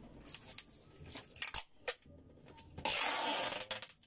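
Packing tape pulled off the roll in one long rasp of about a second, near the end, as a cardboard box is taped shut. Before it, a few knocks and rustles of hands on the cardboard.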